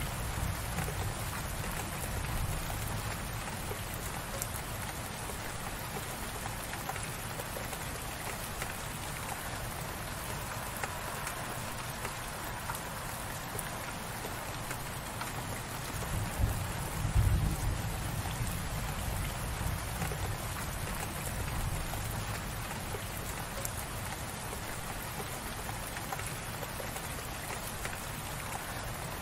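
Gentle, light rain falling steadily: an even hiss of many small drops, with a low rumble underneath that swells briefly a little past halfway through.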